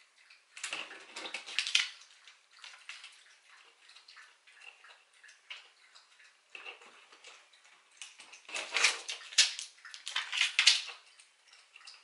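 Hands handling small craft pearls and jewels and their sheet, pressing them onto a wooden clothespin on a tabletop: light crinkling, scraping and small taps, with two louder spells of rustling, one near the start and one toward the end.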